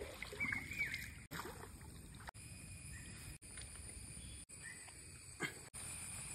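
Light splashing and sloshing of river water as a hand and banana leaves are rinsed in it, in short pieces that break off abruptly about every second. A short high squeak sounds about half a second in.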